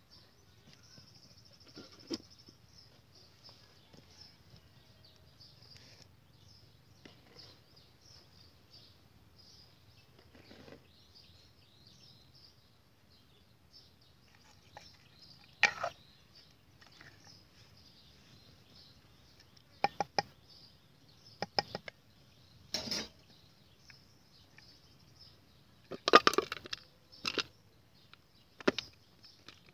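Clay mortar and a metal spoon knocking and clinking against a ceramic plate as a wet chicken-feet salad is scooped and tipped onto it: a scatter of sharp knocks, more frequent in the second half, with the loudest cluster near the end. Steady high chirping runs underneath throughout.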